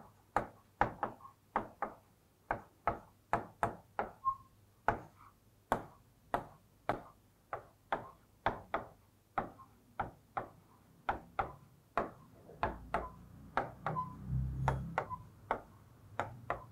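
A pen striking a writing board again and again as lines and letters are drawn: short, sharp taps and knocks, about two a second. A low, muffled rumble comes about two seconds before the end.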